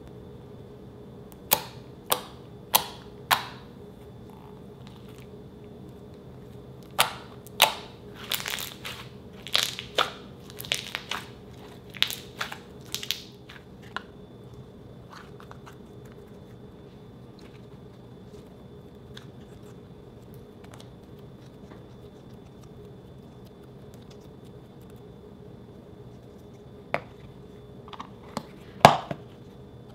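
Sharp clicks and pops from handling fluffy slime and a clear plastic tub. Four evenly spaced clicks come near the start and a dense run follows in the middle. A few more come near the end, the loudest just before it, as the slime is pressed into the tub. A faint steady hum runs underneath.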